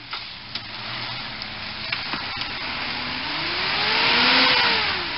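Mitsubishi Shogun 4x4 engine revving as it climbs a muddy slope, the pitch rising and then falling back, over a loud rushing hiss that peaks about four seconds in.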